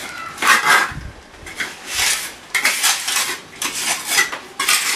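Clinking and clattering of hard demolition rubble and tools being handled, in irregular bursts with short pauses between.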